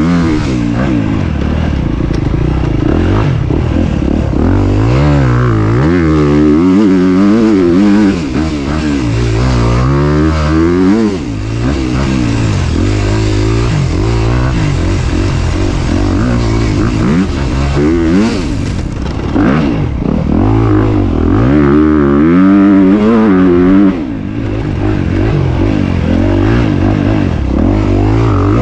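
2022 Honda CRF250RX's single-cylinder four-stroke engine revving up and down as the rider rides a dirt trail, its pitch rising and falling over and over. It drops off briefly a few times where the throttle is shut, then picks up again.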